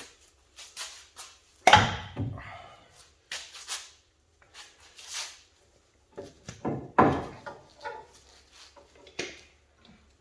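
Metal clunks and rattles as a broken front axle shaft is pulled out of the hub and comes apart in pieces, with two loud clunks about two seconds in and about seven seconds in.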